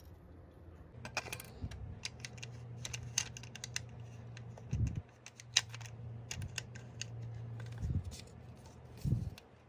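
Handling of a plastic drink tumbler and its cap: many small irregular clicks and taps, with three dull thumps, over a low steady hum.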